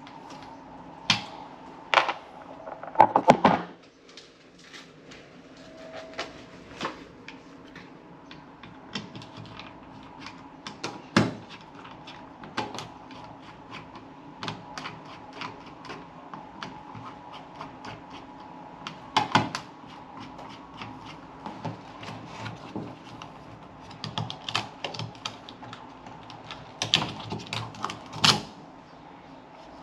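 Irregular small clicks and taps of hands and a screwdriver working thermostat wires and plastic parts at the wall, clustered in short flurries, over a steady low hum.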